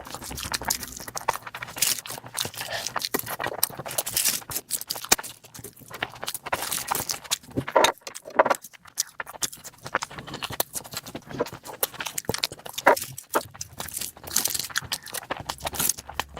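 Close-miked eating: irregular wet clicks, smacks and crunches of chewing food.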